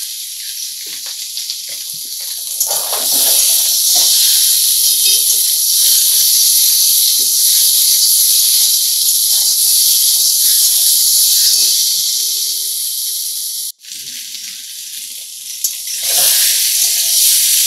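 Cubed potatoes and peanuts sizzling in hot oil in a steel kadai, a steady hiss that swells a couple of seconds in, while a steel spatula scrapes and clicks against the pan as they are stirred. The sound cuts out abruptly for a moment about two-thirds through, then returns.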